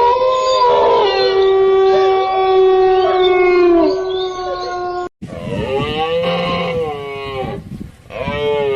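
An animal's long, steady, howl-like call that dips in pitch at its end. After a sudden cut, two shorter calls rise and fall in pitch.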